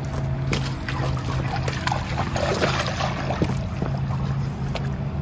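Boat engine idling with a steady low hum, while a dog wades in and splashes through shallow water at a boat ramp.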